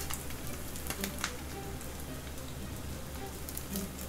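Soy-glazed rice balls sizzling in an oiled frying pan, an even crackle with scattered small pops, the gas burner just turned off beneath them.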